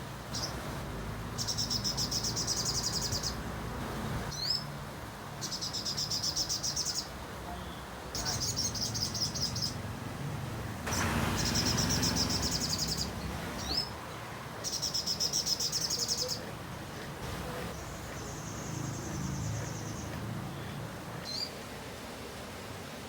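A sogon songbird singing its varied repertoire: high, rapid trills lasting one to two seconds, repeated about every three seconds, with short rising whistled notes between them.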